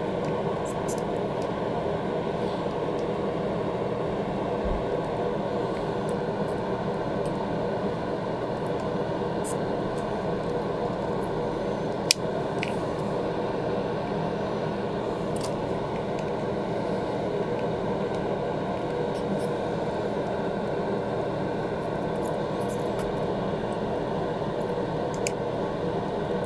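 Solder fume extractor fan running with a steady whir and hum. A single sharp click about twelve seconds in.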